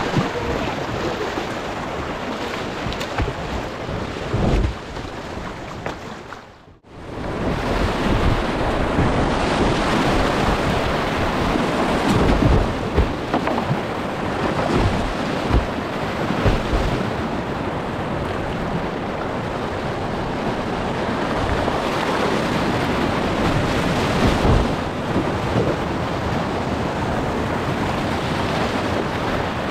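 Whitewater rushing and churning around a kayak running creek rapids, with the splash of paddle strokes and water buffeting the camera's microphone. The sound dips out briefly about seven seconds in, then comes back louder.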